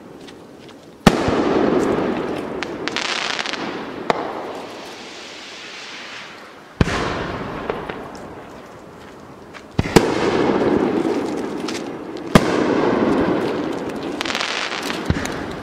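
Aerial firework shells bursting, six sharp bangs about every three seconds, each followed by a long rolling rumble, with crackling hiss after some bursts.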